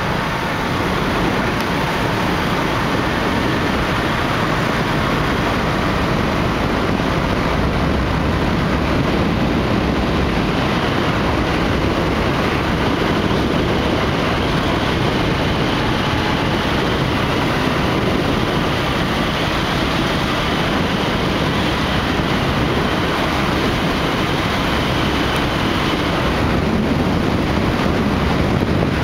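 Steady rushing road and wind noise from a moving vehicle at cruising speed, with no clear breaks or separate events.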